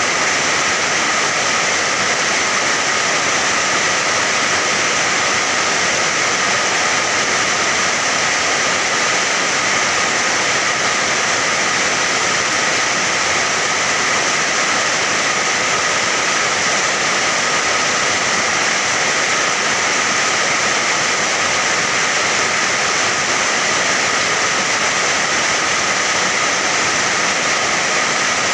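Steady heavy rain, a dense, even hiss with no separate drops, thunder or other events standing out.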